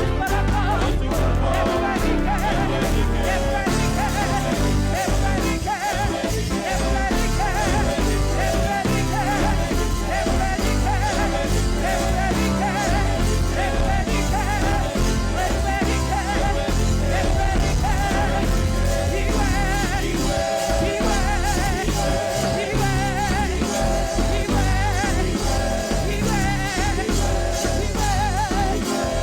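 Live church praise-and-worship music: a band playing steadily with voices singing.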